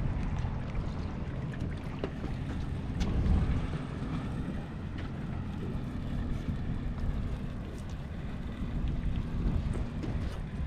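Boat engine running steadily, a low rumble with wind noise on the microphone and a couple of faint clicks.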